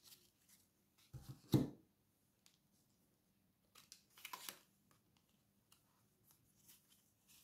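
Tarot cards being handled and drawn: soft card rustles and light slaps, with two sharper taps about a second and a half in and a longer rustle a little past four seconds.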